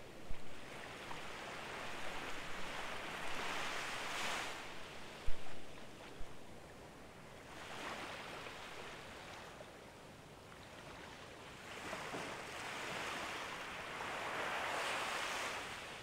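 Small, gentle waves washing up on a sandy beach. The surf swells and fades every few seconds, and the biggest wash comes near the end. A few brief low thumps, the loudest about five seconds in.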